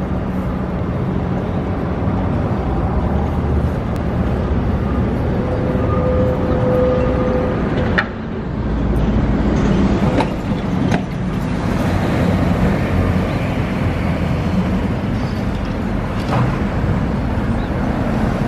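Street traffic, with cars and buses running and a vintage electric tram drawing near. A brief whine just before a sharp knock about eight seconds in, then a few more knocks over the next few seconds.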